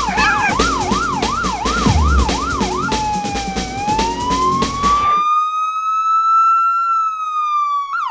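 Fire engine siren in a fast up-and-down yelp about twice a second, changing to a slow wail that rises and then falls. It plays over electronic music with a heavy beat, which cuts out suddenly about five seconds in and leaves the siren alone.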